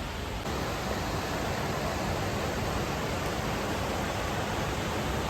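Steady rushing noise of the Nilgiri Mountain Railway train running, heard from inside the coach. It grows a little louder about half a second in.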